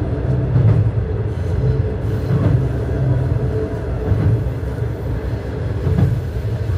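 KiHa 120 diesel railcar running along the line, heard from inside: a steady rumble of engine and wheels on rail, with a couple of sharper clacks from the track.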